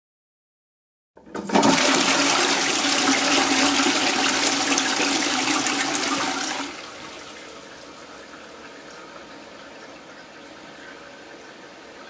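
A toilet flushing: a loud rush of water into the ceramic bowl starts about a second in and lasts about five seconds, then drops off suddenly to the quieter steady hiss of the cistern refilling.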